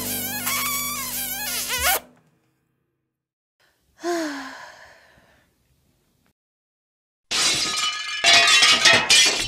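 Gentle background music that stops about two seconds in. A short sigh follows about four seconds in. Near the end comes a loud, noisy transition sound effect with crackling clicks.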